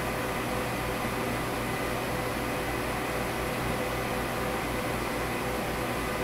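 HP ProLiant ML350 G5 server running with its array rebuilding: a steady whir of cooling fans and drives with a faint steady whine in it, over an uneven low flutter.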